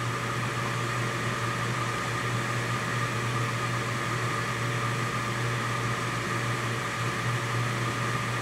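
Coleman CGU gas furnace running with its circulating blower disconnected: a steady mechanical hum and whir with a low drone. It is being run this way to test the high-limit switch.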